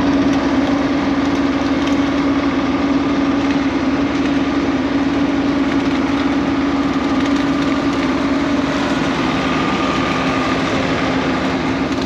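John Deere 6620 combine running steadily while harvesting corn, heard from inside the cab: an even machine drone with one constant hum.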